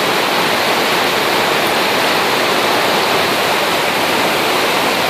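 Loud, steady rush of floodwater pouring over the banks of a flooded waterway.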